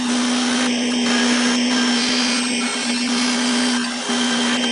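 5-axis CNC machining center milling a metal propeller on its rotary trunnion table, the spindle and cut making a steady hiss with a constant humming tone.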